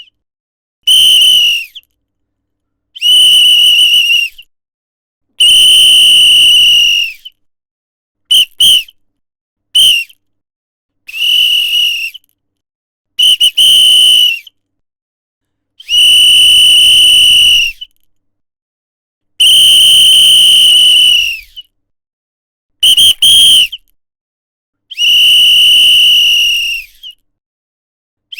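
A whistle blown in a series of sharp, high-pitched blasts: some long, some short pips in quick pairs, one with a rattling trill. Each blast holds a steady pitch and drops off slightly as it ends.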